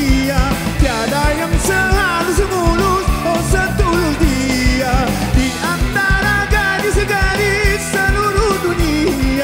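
Live pop-rock band music with a male singer, his melodic line wavering in pitch over a steady drum beat and guitar.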